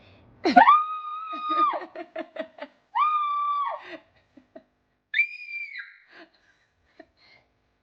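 A child's three high-pitched screams, each held about a second, the third the highest, with a few short clicks between the first two.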